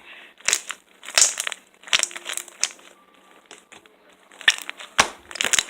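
Homemade glue-and-borax slime being squeezed and worked in the hands, giving irregular bunches of wet crackling and popping clicks with short pauses between.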